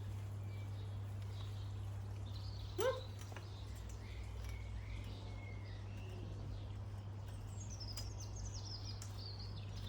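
Small garden birds chirping and singing faintly, with a run of high, falling notes near the end, over a steady low hum. A short rising squeak comes about three seconds in.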